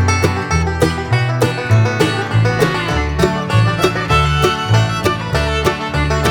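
Background music: an upbeat bluegrass-style tune with plucked banjo and guitar over a steady beat and bass line.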